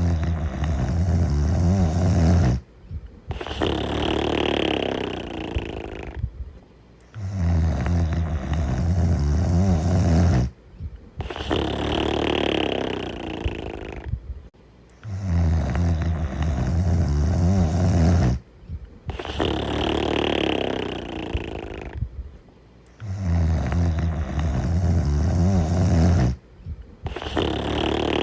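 A sleeping character snoring in a steady repeating cycle about every eight seconds: a low snore on the in-breath, a brief silence, then a breathier out-breath and another pause.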